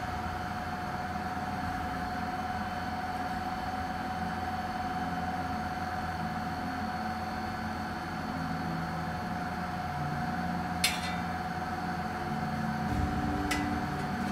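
Steady background hum with a constant mid-pitched whine. A sharp click about eleven seconds in and a few lighter clicks near the end come from thin sheet-metal model truck cabin parts being handled and fitted.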